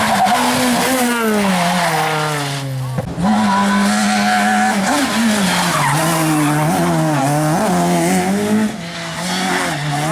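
Rally car engine at high revs under hard driving: the pitch falls steadily for about three seconds as the car slows, breaks off briefly, then comes back high and wavers up and down with quick dips as the driver lifts and shifts.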